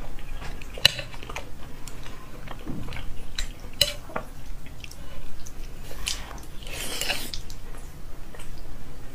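Close-up eating sounds: chopsticks clicking sharply against a bowl a few times, then biting into and wetly chewing soft braised pork belly.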